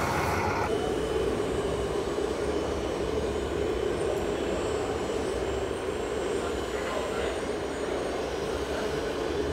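Radio-controlled model vehicle running: a steady hum with faint thin high whines above it.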